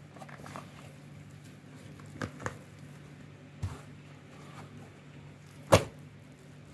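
Soft, sticky egg-streaked dough being kneaded by hand in a plastic bowl: the mass is lifted and slapped or pressed back down, giving a few short wet slaps, the loudest near the end.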